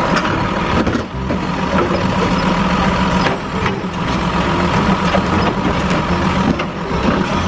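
Garbage truck engine running steadily.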